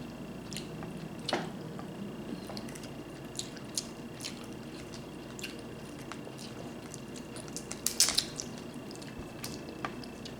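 Wet, messy eating of sauce-covered seafood boil: squishing and chewing with scattered small clicks of shell and utensils, and a louder cluster of clicks about eight seconds in.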